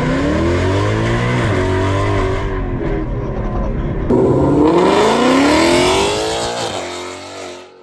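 Ford Mustang GT's 5.0 V8 with Kooks long-tube headers accelerating hard past, loud. The pitch climbs, drops at a gear change and climbs again, then the sound fades quickly near the end as the car moves away.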